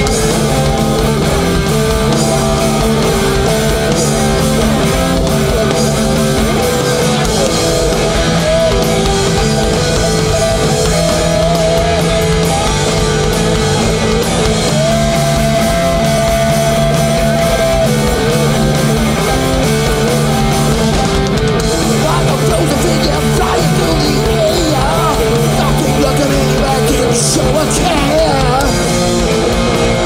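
Live crossover thrash band playing loud and continuously, with distorted electric guitars and one long held note about halfway through.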